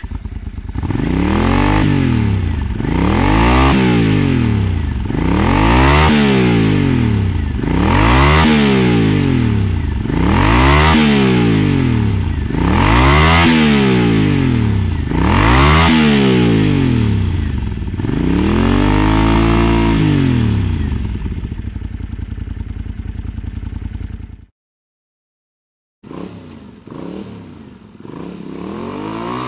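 Motorcycle engine revved repeatedly, about eight blips roughly every two and a half seconds, each rising and falling in pitch. It then settles to a steady idle before cutting off, and after a short silence a quieter engine sound begins.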